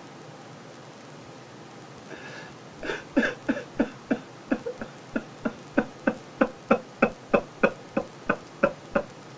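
A man sobbing: a long run of short, regular gasping sobs, about three a second, starting about three seconds in and stopping near the end.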